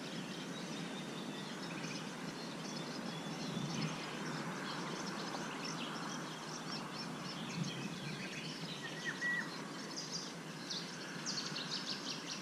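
Riverside ambience: a steady background hiss with small birds chirping and singing throughout, the calls coming thicker near the end.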